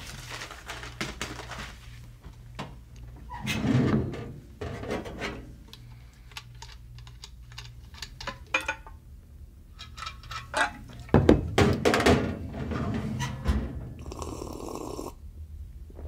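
Desk handling sounds: paper rustling and scattered light knocks and clicks, with a few heavier dull thunks, over a steady low hum.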